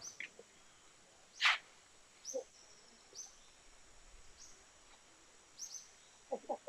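Short high bird chirps repeating roughly once a second in tropical forest, with a few soft footsteps on the trail. One louder brushing rustle comes about a second and a half in.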